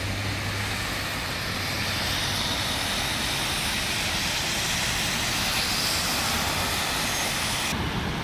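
Steady road-traffic noise from cars on a wet, slushy road: a continuous hiss of tyres over water and ice with a low engine rumble. The higher hiss drops away abruptly near the end.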